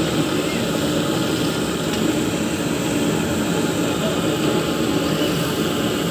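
Steady sizzling of fish deep-frying in a large karahi of bubbling oil.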